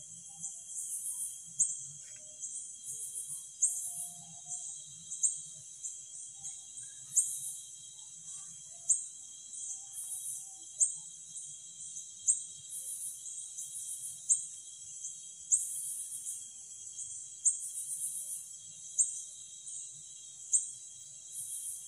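Night insect chorus, crickets: sharp high-pitched chirps repeating a little more than once a second over a steady high whine.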